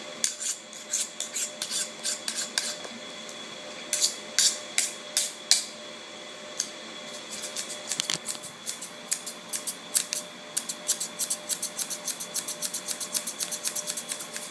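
Typing on a computer keyboard: bursts of key clicks, sparse and uneven at first, then a quicker, steadier run near the end.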